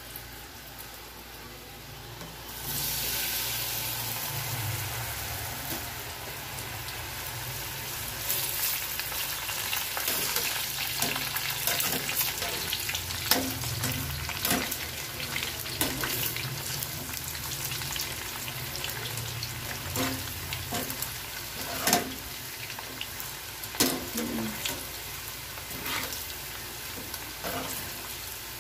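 Batter-coated potato sticks going into hot oil about two and a half seconds in, setting off a sudden loud sizzle that carries on steadily as they deep-fry. Scattered sharp clinks of a wire spider strainer against the metal pan as they are stirred.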